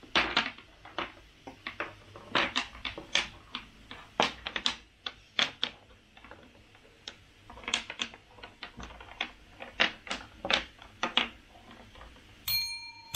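Quick irregular clicks and taps of pieces and cards in a tabletop toy game, then a single bell ding near the end.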